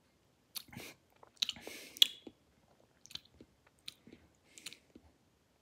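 Wet mouth sounds of a person tasting a mouthful of beer: a scatter of short lip and tongue smacks and clicks, with a brief hiss and the loudest click about two seconds in.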